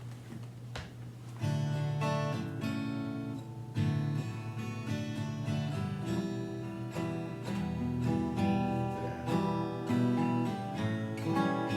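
Acoustic guitar strumming chords as a song's instrumental intro, starting about a second and a half in.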